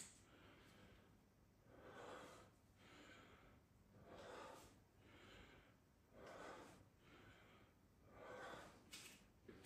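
A person breathing hard from exertion, quiet noisy breaths coming every second or two, with a couple of sharp clicks near the end.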